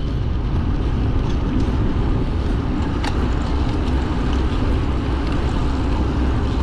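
Steady wind rumble over the camera's microphone while riding along a road.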